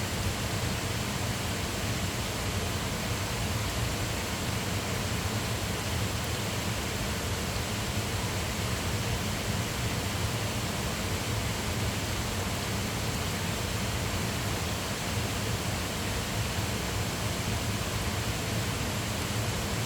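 Mountain stream water rushing and splashing over rocks, a steady, even rush with no breaks.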